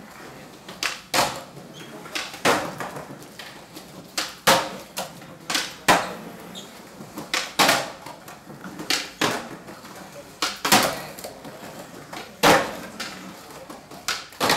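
Skateboards cracking and slapping on a hard indoor floor during flatground flip tricks: a string of sharp wooden clacks from pops and landings, about one every second or two, each ringing briefly in the room.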